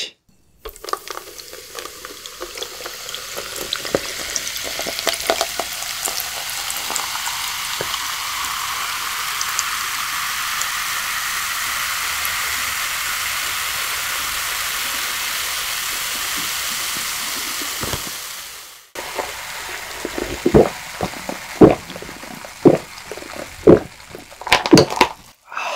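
Pepsi cola poured from a can into a plastic cup of ice, a long fizzing hiss that swells over about eighteen seconds and cuts off sharply. Then a run of loud gulps as the cola is drunk.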